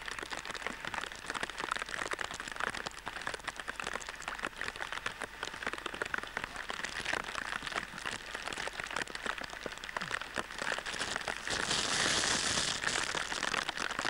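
Rain falling steadily, a dense crackle of small drops, growing louder and hissier for about a second near the end.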